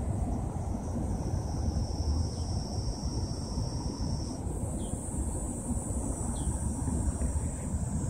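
Insects trilling steadily in high-pitched bands, one song stopping and a higher one taking over about halfway through, over a steady low rumble.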